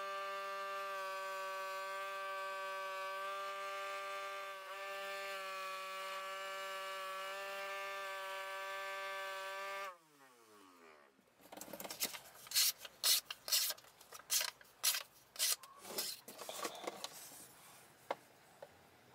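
Small electric bench grinder running with a steady motor whine while a knife blade is polished on its wheel. About ten seconds in it is switched off and winds down with a falling pitch. A few seconds later comes a run of quick, irregular rubbing strokes as the blade is worked against a hand-held strip.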